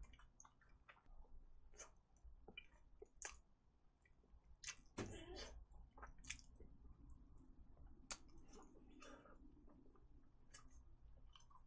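Faint chewing and mouth sounds of a person eating a seasoned fried chicken drumstick: scattered soft clicks, with a slightly louder mouth sound about five seconds in.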